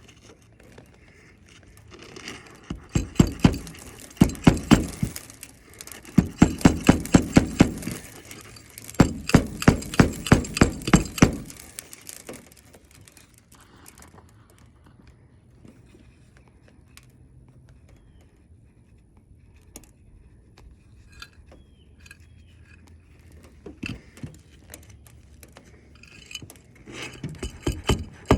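A hammer driving nails into a roof shingle: three runs of quick, even strikes, about five a second, in the first twelve seconds, then a few lighter taps near the end.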